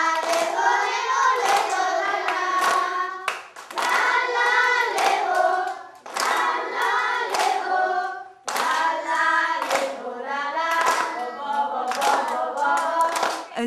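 A group of young children singing a song together and clapping their hands in time, in short phrases with brief breaks between them.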